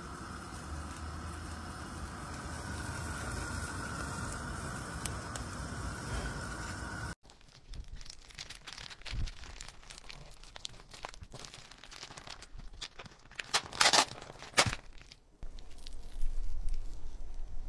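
Water boiling in a saucepan on a gas burner, a steady bubbling hiss that cuts off after about seven seconds. Then plastic bacon packaging crinkles and tears as hands peel the strips apart, with the loudest tearing a few seconds before the end.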